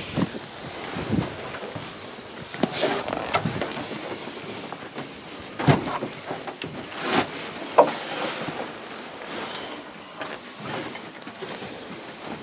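Rubber boots shuffling and knocking on the wooden floorboards of a hunting-tower hide, mixed with rustling clothing and gear, with a few sharper knocks.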